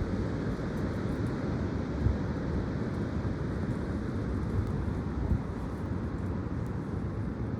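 Strong, gusty wind blowing across the microphone, a steady rushing noise with irregular low buffeting thumps.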